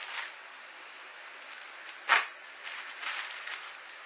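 A parcel being opened by hand: short rustling, scraping noises of packaging, with one brief, much louder sharp noise about two seconds in.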